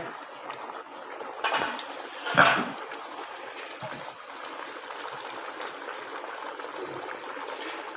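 Rice boiling in water in a large steel pot: a steady bubbling hiss, with two short knocks about one and a half and two and a half seconds in as the lid comes off and a slotted spatula goes into the pot. The rice is being parboiled to about 80% done.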